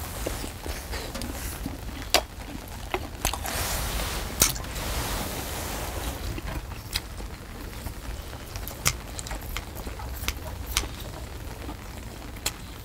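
Metal tongs and a ladle clicking and scraping against a large cauldron-lid pan of seafood stew, in scattered sharp clicks. Under them is a steady low rumble of wind on the microphone, which swells for a couple of seconds about four seconds in.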